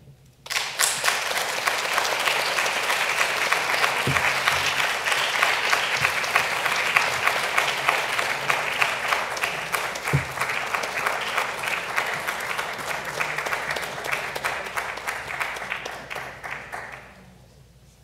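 Audience applauding. The clapping starts about half a second in, holds steady, then tapers off and stops near the end.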